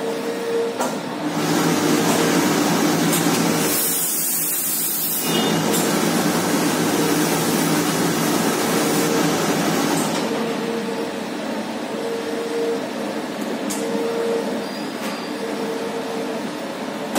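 Boiler-fed steam iron hissing as it releases steam onto cloth, with a strong burst of hiss about four seconds in, over the ironing machine's steady running hum and hiss.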